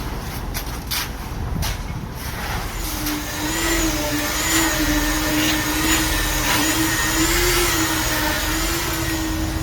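A few sharp knocks, then a small motor starts about three seconds in and runs with a steady, slightly wavering whine.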